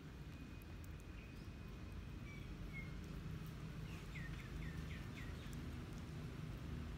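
Steady low outdoor background rumble. A bird whistles a thin held note in the first few seconds, then gives a quick run of four chirps about four seconds in.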